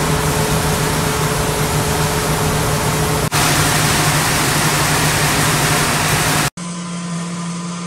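Wheat pouring from opened hatches in a grain store's overhead conveyor onto the heap: a loud, even rushing hiss over the steady hum of the conveyor running. Near the end it cuts off abruptly to a quieter steady machine hum.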